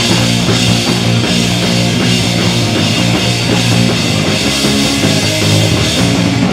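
Punk rock band playing an instrumental passage at full volume: electric guitar, bass guitar and drum kit, no vocals. It starts abruptly.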